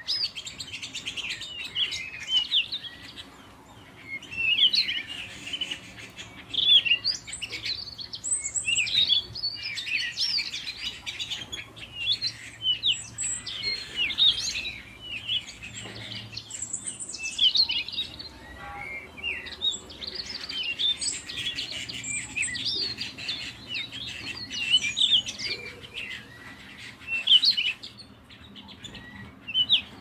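Several domestic canaries chirping and twittering: a busy, overlapping stream of quick high calls and short song phrases.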